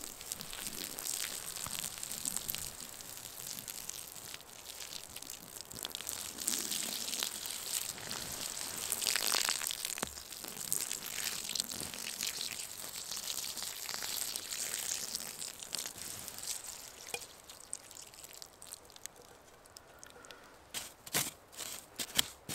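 Water poured onto the embers of a campfire in a dug pit, sizzling and hissing as the fire is put out, loudest about nine seconds in and dying away after. Near the end, a stick scrapes and knocks in the wet ash as it is stirred.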